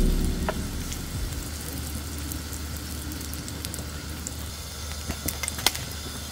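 Buchimgae batter frying on a hot round griddle pan: a steady sizzle with scattered small pops, and a few sharper pops about five seconds in.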